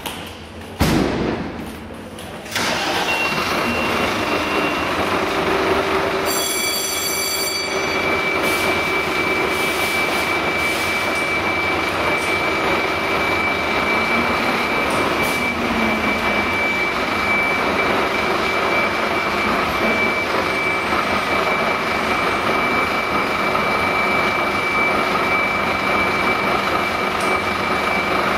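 Scania fire engine's diesel engine starting about a second in, then running steadily, with a thin steady high tone over it.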